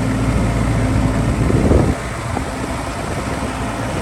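Kubota tractor's diesel engine running steadily as the tractor drives, with a low hum. It is louder for the first two seconds, then drops down.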